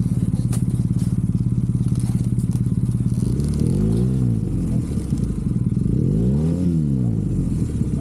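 Adventure motorcycle engine running under way with a fast, even pulse. Twice, about four and six and a half seconds in, its pitch rises and falls again as the throttle is opened and closed.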